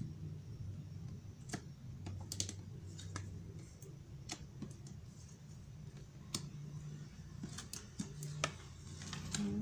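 Plastic-sleeved tarot cards being dealt and laid down on a table: scattered light clicks and taps as each card is set down, with a cluster of them near the end, over a steady low hum.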